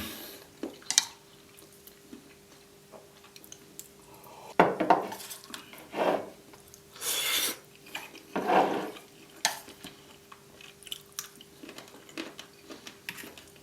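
Cutlery clicking and scraping on a plate, with a few louder wet eating sounds: short slurps of saucy noodles, about four in the middle of the stretch.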